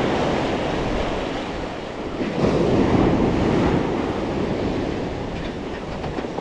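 Beach surf washing in, with wind rumbling on the microphone. A wave surges louder about two and a half seconds in, then eases off.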